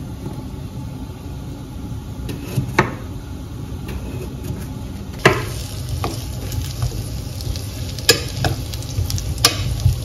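A couple of knife taps on the worktop as carrots are sliced, then potato strips and onions sizzling in oil in a pressure cooker, stirred with a metal spoon that clinks against the pot every second or two.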